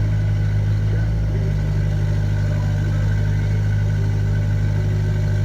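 Volvo ECR88 compact excavator's diesel engine running steadily, a constant low hum.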